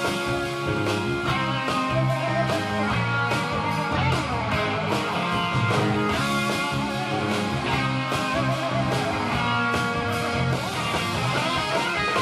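Instrumental passage of an upbeat guitar-led rock song, with no singing; guitar over a steady rhythmic beat.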